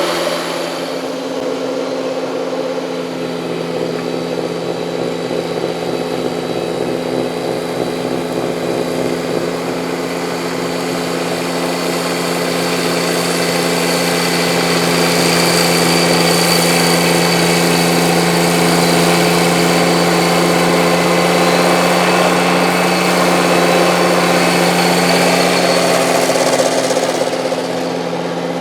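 Kubota compact tractor's diesel engine running at a steady speed under load, with a rushing noise that swells about halfway through and falls back near the end.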